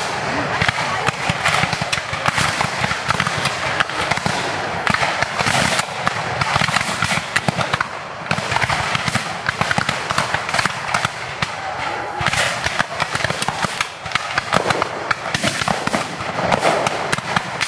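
Rolling black-powder musket fire from lines of Civil War reenactor infantry: many shots a second, irregular and overlapping, crackling without a break.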